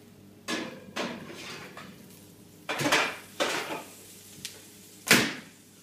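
Metal clanks and clatters of a gas oven's door and a baking tray as the tray is taken out of the oven. There are several separate knocks, with the loudest, sharpest bang near the end.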